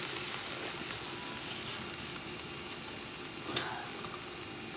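Leftovers reheating in a hot pan, sizzling steadily, with one sharp knock about three and a half seconds in.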